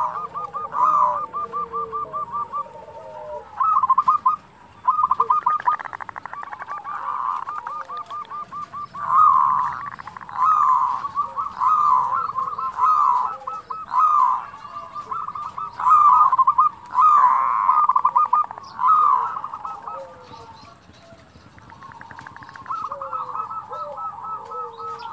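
Zebra doves (perkutut) calling: rapid rattling trills and rolling coos (the 'kerot' and 'bekur' calls), phrase after phrase, with a brief gap about four seconds in and a quieter stretch near the end.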